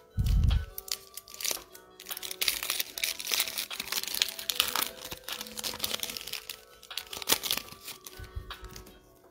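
Foil wrapper of a Panini Prizm basketball card pack crinkling and rustling as it is handled and opened by hand. A low thump comes right at the start.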